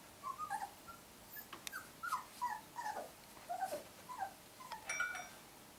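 Golden Retriever puppies whimpering and squeaking: a string of short, high, mostly falling cries, with a few light clicks among them.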